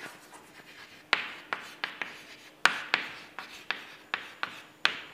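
Chalk writing on a blackboard: a run of short, sharp taps and scratchy strokes, irregular and two or three a second, starting about a second in as a word is written out.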